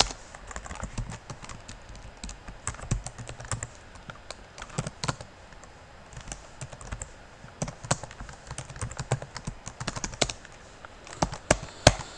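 Typing on a computer keyboard: irregular runs of key clicks with short pauses, a few sharper keystrokes near the end.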